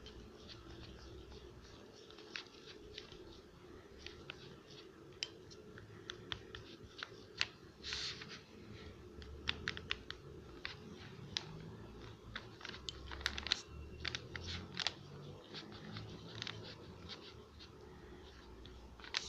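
Slime being stirred and worked in a container as laundry detergent is mixed in: many irregular small clicks, wet pops and scrapes.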